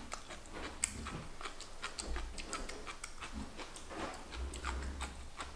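Chewing a mouthful of crunchy seasoned soybean sprouts: a quiet run of small, irregular crisp clicks and crunches.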